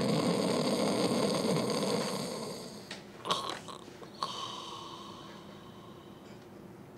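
A man snoring in his sleep. The loudest snore comes at the start and fades over a couple of seconds, with a couple of short sounds near the middle.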